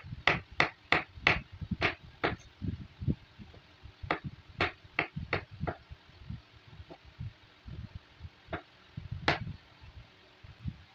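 Kitchen knife chopping bottle gourd on a wooden cutting board: sharp knocks of the blade on the board, about three a second, in a run at the start and another about four seconds in, then a couple of single knocks near the end.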